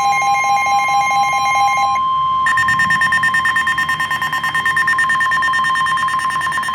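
Emergency Alert System alert tone announcing a flash flood warning: a loud, harsh electronic alarm of steady tones. About two seconds in, the upper tones cut out for a moment and return at a different pitch, pulsing rapidly.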